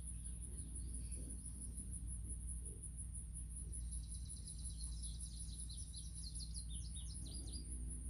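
Faint bird chirping: a quick run of short, high chirps from about three and a half seconds in until near the end. Under it sits a steady, fast-pulsing high insect trill and a low hum.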